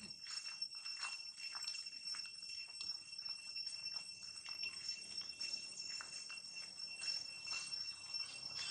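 Outdoor ambience: a steady high-pitched insect drone, with many short, irregular ticks and chirps.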